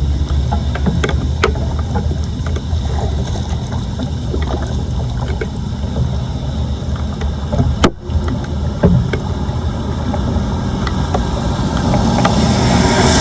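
Floodwater sloshing and rushing, with a steady low rumble of wind on the microphone and scattered knocks and clicks. The sound breaks off abruptly about eight seconds in and swells louder near the end.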